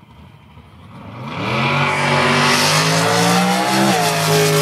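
Drag racing car's engine launching and accelerating down the strip: a loud engine note that comes in about a second in and climbs steadily in pitch, then drops suddenly near the end and carries on at a lower, steadier pitch.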